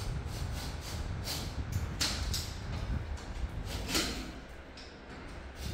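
Scraping and rustling from work inside a ceiling opening while a bathroom exhaust fan is being fitted: several short scrapes, the strongest about four seconds in, over a low rumble.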